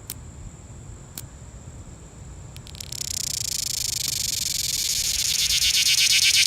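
A cicada close up starting its call: a few sharp clicks, then about three seconds in a buzz of very rapid pulses begins and grows steadily louder.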